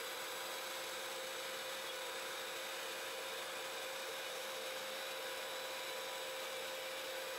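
Shapeoko CNC router's spindle and shop vacuum running together: a steady whine over a constant hiss.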